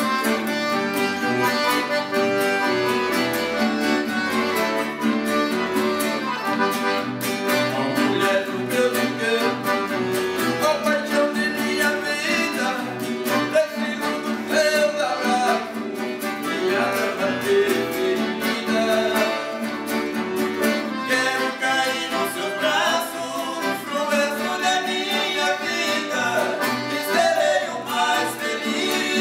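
Brazilian música caipira (sertanejo raiz) played on a piano accordion and an acoustic guitar. Male voices singing in harmony come in partway through.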